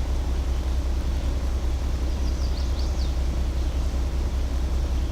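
Truck engine idling steadily with a deep, even hum, and a few short high chirps about two to three seconds in.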